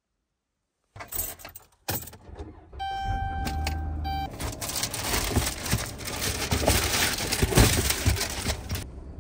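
Car keys jangling, then a steady electronic warning chime from the Dodge minivan's dashboard as the ignition is switched on. A rough rushing noise follows for about four seconds and cuts off near the end.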